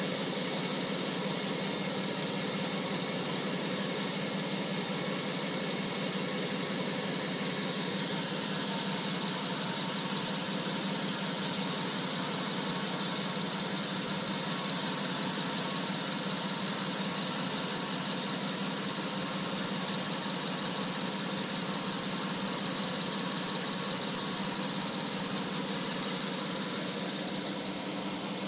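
Jaguar XJS 6.0-litre V12 engine idling steadily, with its electric cooling fans running at full speed and adding a steady rushing hiss. The even idle shows the vacuum leak is cured: the Vee top plate gasket and the breather seals have been replaced.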